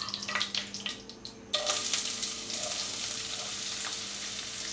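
Chopped onions sizzling in hot oil in a non-stick wok. The frying hiss starts suddenly about a second and a half in, then carries on steadily.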